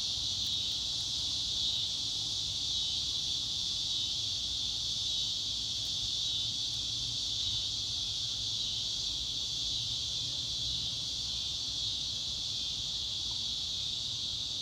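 Steady, high-pitched insect chorus that goes on without a break.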